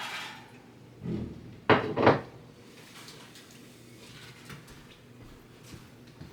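Kitchen knocks: a soft thud about a second in, then two sharp clunks in quick succession, as of a cupboard or door being shut, followed by faint clatter of household items.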